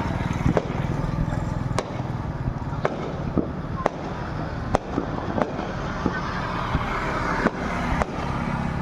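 Fireworks going off: sharp bangs at irregular spacing, roughly one a second, over a continuous low rumble.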